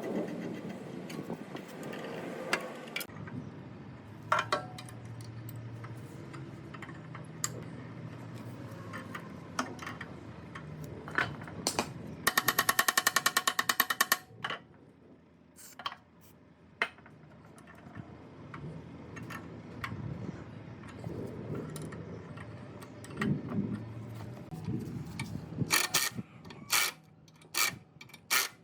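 Workshop sounds of metal parts being worked on: scattered clinks and knocks, with a loud two-second burst of rapid, even rattling from a power tool about twelve seconds in.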